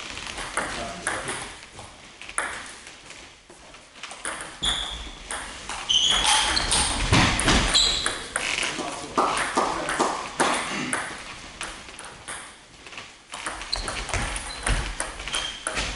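Table tennis balls clicking off bats and the table in quick rallies, with strings of sharp pings that are busiest in the middle. A few short high squeaks come between the hits.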